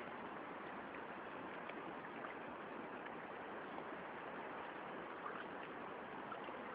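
Steady rush of river water, with a few faint small splashes.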